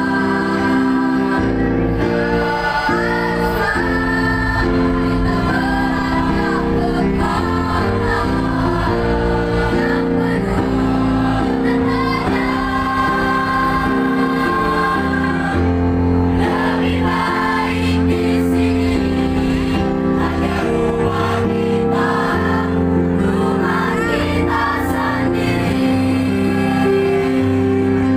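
Mixed school choir of girls' and boys' voices singing in parts: sustained chords held under a melody that moves above them.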